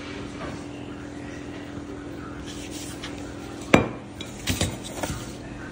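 Pen scratching faintly on paper on a wooden table, with one sharp clack about two-thirds of the way through and a few lighter knocks after it. A steady low hum runs underneath.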